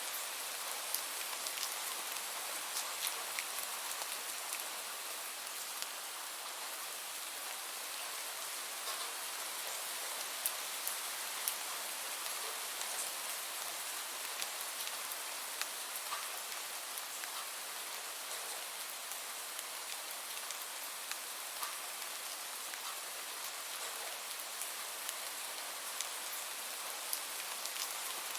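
Steady rain falling, a dense even hiss with many small drop impacts ticking through it.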